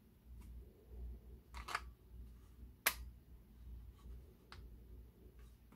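Plastic clicks from a blade holder clamp as a CB09 blade holder is fitted into it. A short cluster of clicks comes about a second and a half in, one sharp snap about three seconds in, then a couple of faint ticks, over a low hum.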